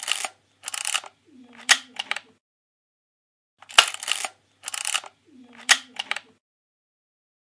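Camera shutter sound effect played twice, about four seconds apart: each time a sharp click, a short rasp, then a brief low whir with a few small clicks.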